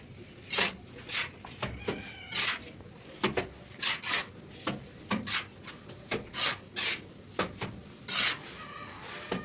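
Hand plastering tool scraping and rubbing wet cement-sand plaster on a brick wall in repeated short strokes, roughly one or two a second.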